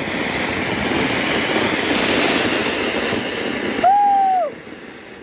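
Anar (flowerpot fountain firework) hissing as it sprays sparks, growing steadily louder, then stopping abruptly about four seconds in. A loud, brief high-pitched call follows and falls away at the end.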